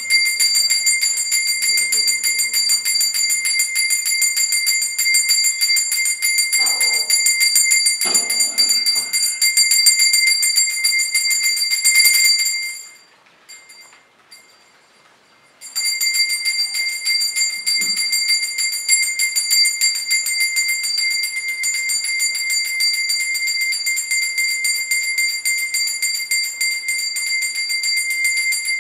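Puja hand bell rung rapidly and continuously, a steady high-pitched ringing of the kind that accompanies Hindu worship. It stops for about three seconds a little before the middle, then starts again.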